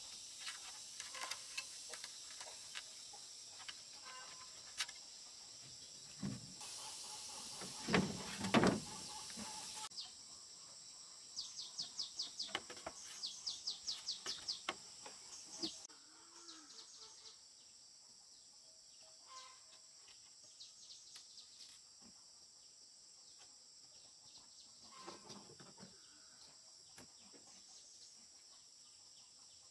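Bamboo poles and slats knocking and clattering as they are handled on a roof frame, with a couple of heavier thumps about eight seconds in. Over a steady high insect drone, a bird sings rapid repeated chirps for a few seconds in the middle.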